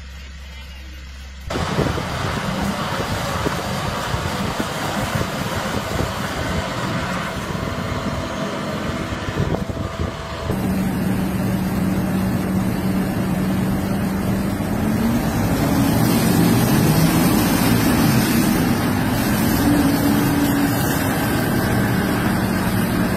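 Diesel tractor engines running hard under load as tractors pull against each other. The sound jumps in suddenly about a second and a half in, then changes near ten seconds in to a steady low engine drone whose pitch wavers as the revs rise and fall.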